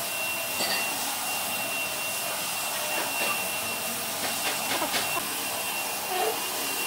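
Steady hissing noise of a running machine, like a vacuum or fan, with a thin high steady tone over it and a few faint clicks.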